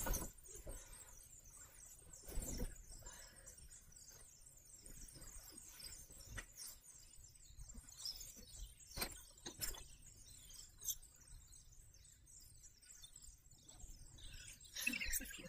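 Fabric rustling and swishing as a comforter is shaken out and spread over a mattress, in a handful of separate sweeps, the loudest about two seconds in and near the end. Faint high-pitched chirping runs underneath.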